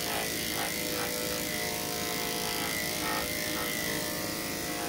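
Electric dog grooming clippers with a number 10 blade running steadily, shaving through a Schnauzer's damp coat along its back.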